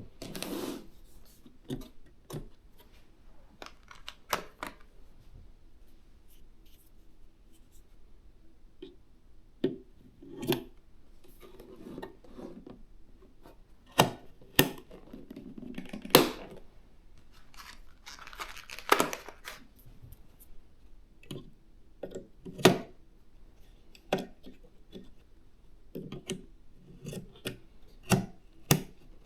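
PC components and their packaging being handled: scattered sharp clicks and taps, with a few stretches of rustling, tearing packaging near the start and again past the middle.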